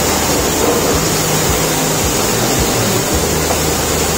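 A steady, even hiss with no distinct knocks or strokes in it.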